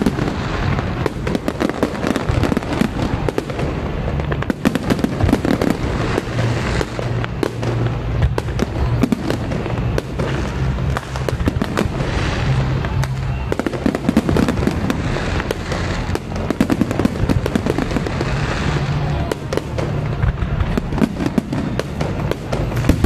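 Fireworks display going off without pause: a dense, rapid crackle of many bangs over a deep rumble.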